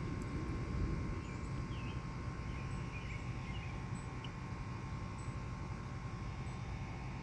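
Thunderstorm ambience: a steady low rumble, with a few faint, short high chirps in the first half.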